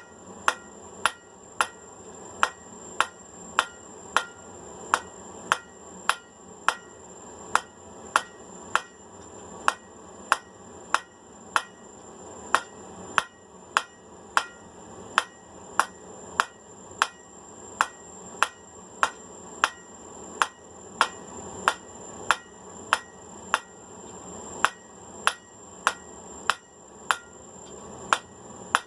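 Hand hammer striking hot 5/8-inch round steel bar on an anvil in an even rhythm of nearly two blows a second, drawing a point on the end of the bar.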